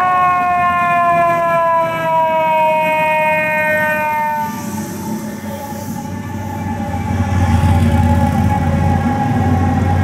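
FDNY fire truck's siren: one long tone that steps up at the start, then slides slowly down in pitch and fades over about five seconds. As the truck passes close in the second half, the low rumble of its engine becomes the loudest sound.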